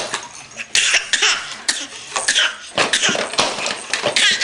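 A young boy giving a series of short, deliberate fake coughs.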